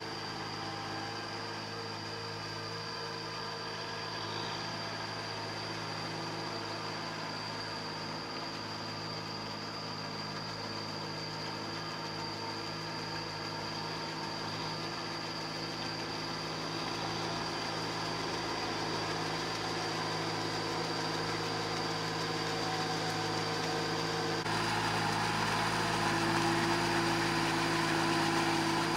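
Kubota M6040 farm tractor's diesel engine running steadily under load as it pulls a rotary tiller through a flooded rice paddy. About 24 seconds in the sound switches to another tractor engine running a little louder.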